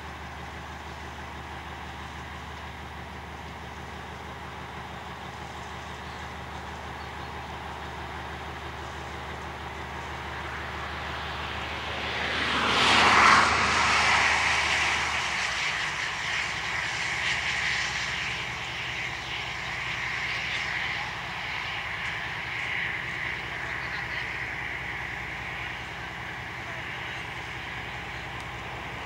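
Lxd2 narrow-gauge diesel locomotive's engine running as it hauls a wagon slowly along the track. The engine sound grows louder about halfway through, peaks briefly, then carries on as a steady drone.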